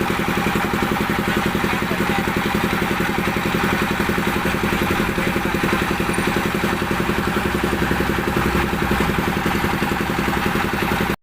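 An engine running steadily at idle, with a fast, even pulsing beat.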